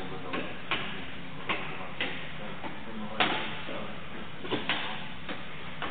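Hands striking the round target discs of a reaction-time test frame, a series of short sharp taps at uneven intervals, about eight of them, the loudest about three seconds in. Each tap is a boxer's hit on a target in a reaction-time drill.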